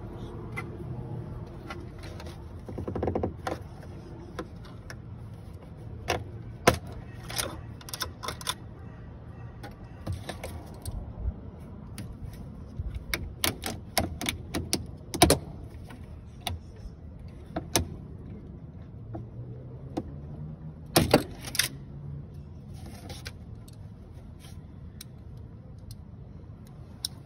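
Scattered sharp clicks, taps and rattles from hands handling hoses and plastic parts in a car's engine bay, some in quick clusters, over a steady low hum.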